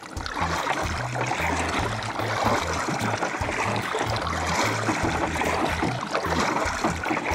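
Kayak paddle strokes: water splashing and trickling off the paddle blades as they dip and lift on alternate sides, a steady wash of water noise heard close up from the kayak.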